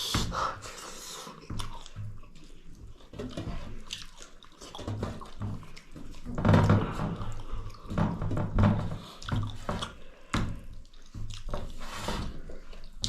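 Close-up eating sounds: chewing with wet lip smacks and mouth clicks, irregular throughout.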